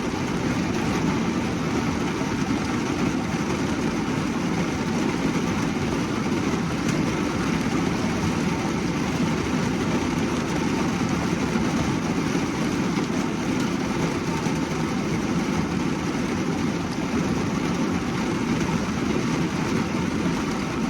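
Rain falling steadily on a car's roof and windows, heard from inside the cabin as a dense, even drumming patter.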